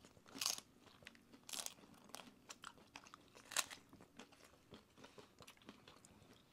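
Crisp tostada shells being bitten and chewed: three loud crunches in the first four seconds, with small crackles between, then quieter chewing.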